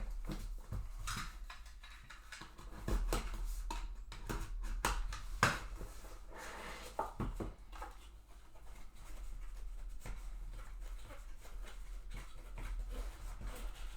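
Cardboard trading-card box and its packaging being handled and opened by hand: scattered clicks, taps and rustles, with a low steady hum underneath.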